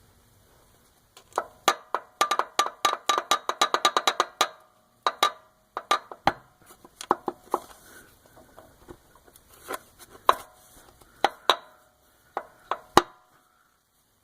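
Worn connecting rod on a 1996 Eagle Vision's 3.5 L V6 crankshaft being worked back and forth, clacking metal on metal through its excess play. First a rapid run of about eight clacks a second with a ringing tone, then slower, irregular knocks. The play comes from a rod bearing worn through to no bearing material left.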